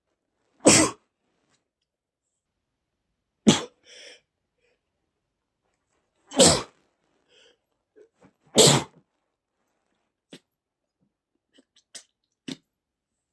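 A man sneezing hard four times, about two to three seconds apart, in a sneezing fit set off by inhaled dust. A few faint short clicks follow near the end.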